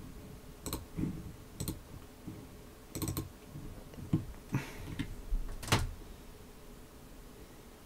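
Computer keyboard and mouse clicks: about eight separate taps over the first six seconds, then they stop.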